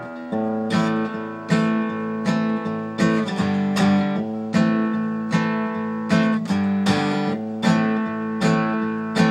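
Acoustic guitar strummed in a steady rhythm, chords ringing between the strokes, with no voice over it.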